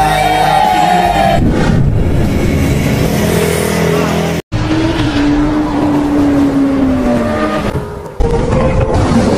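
Vehicle engines revving, cut off sharply about halfway through. Then comes a long whine that falls slowly in pitch.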